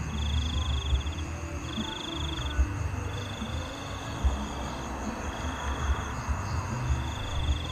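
Night chorus of small calling animals: a high, buzzy trill that repeats in bursts of about a second with short gaps, over a low steady rumble and a few soft knocks.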